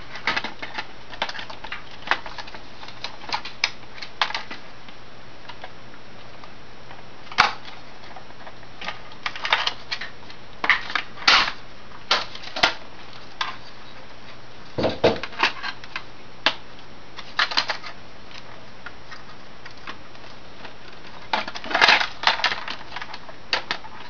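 Irregular light clicks and taps of dishwasher control-panel parts being handled and snapped back into place, with a duller knock about 15 seconds in.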